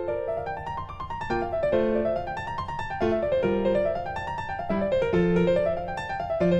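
Piano music: rolling arpeggios that climb and fall over a low bass note, with a new run starting about every second and a half.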